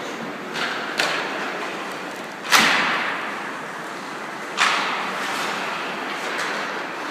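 Three sharp bangs, each trailing off in an echo, the second one the loudest, over a steady background noise.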